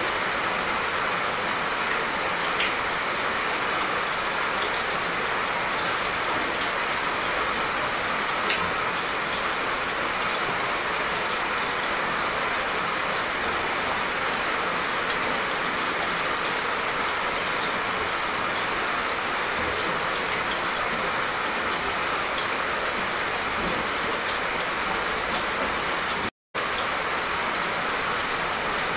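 Steady, gentle rain falling: an even hiss with fine scattered drop ticks. The sound cuts out for a split second near the end.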